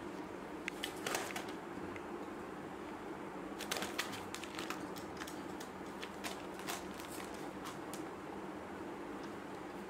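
Irregular light clicks and taps as a Lahore pigeon shuffles and turns on newspaper in a wire cage, a few about a second in and a denser run from about three and a half to eight seconds in, over a steady low hum.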